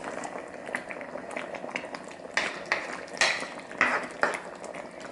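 Wooden spatula stirring thick coconut red curry in a wok, the curry still bubbling and popping from its own heat just after the burner is turned off. Several louder swishes of the spatula through the curry come in the second half.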